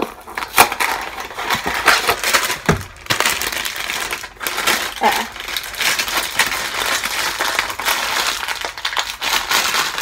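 Cardboard cake-mix box being torn open and its plastic inner bag of powdered mix pulled out and handled, crackling and crinkling throughout with sharp snaps.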